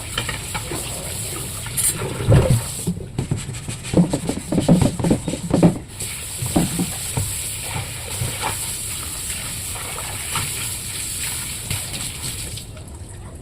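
Water running and splashing steadily, with a few dull knocks mixed in, clustered between about 2 and 6 seconds in.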